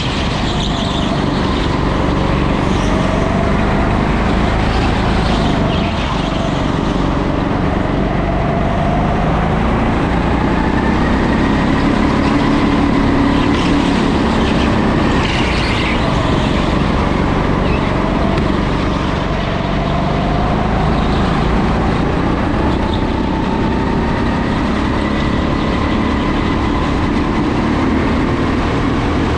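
Rental go-kart driven at racing speed round an indoor track, heard from on board. The motor's pitch rises and falls several times as it accelerates out of corners and slows into them, over steady tyre and running noise.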